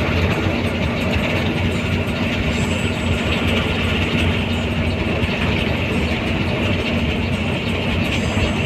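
Steady engine and road noise inside a coach bus travelling at speed, a constant low hum under a dense rushing haze.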